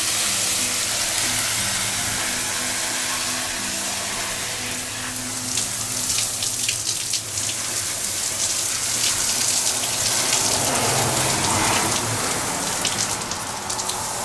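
Garden hose spray nozzle hissing as it sprays water onto a moss-lined hanging planter and its leaves. From about five seconds in, a patter of splashes and drips joins the spray.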